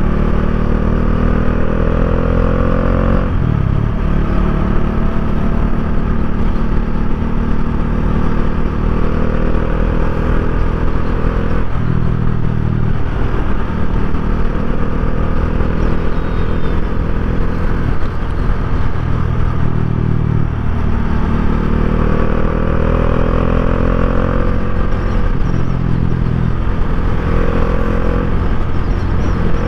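2019 Bajaj Dominar 400's single-cylinder engine and exhaust under way, the note climbing steadily in pitch through each gear and dropping sharply at each upshift, about four times.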